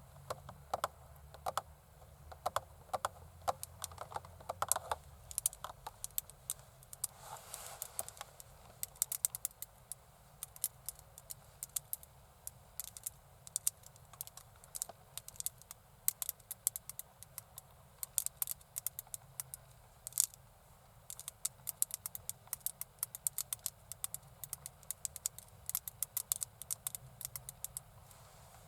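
Long acrylic fingernails tapping rapidly and irregularly, many sharp clicks a second, with a short scratching stroke about seven seconds in.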